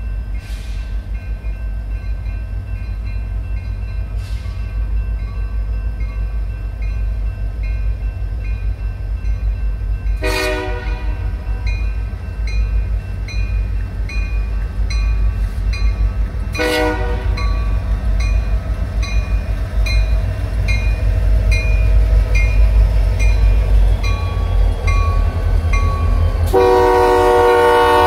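Grade-crossing bell ringing steadily while an approaching freight train's diesel locomotive rumbles in, louder as it nears. The locomotive's air horn sounds two brief blasts, then a long, loud blast as it reaches the crossing near the end.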